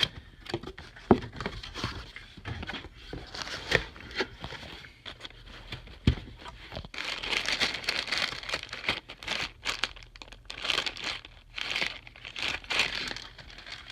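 A cardboard box being opened and unpacked by hand: scattered knocks and scrapes, then several seconds of crinkling packaging as the contents are pulled out.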